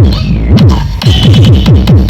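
Loud electronic dance music with a heavy bass kick of about four beats a second, played through a sound system under test. The beat drops out briefly near the start and comes back in about a second in.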